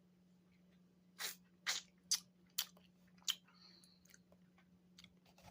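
Mouth chewing and crunching on a frozen strawberry fruit bar: about five short crunches in quick succession between one and three and a half seconds in, over a faint steady hum.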